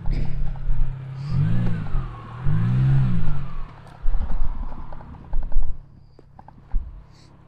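Subaru Crosstrek engine running, revved up and back down twice in quick blips while crawling over an obstacle. It is followed by irregular low rumbling and sharp knocks, typical of tyres and underbody on rock, and quietens near the end.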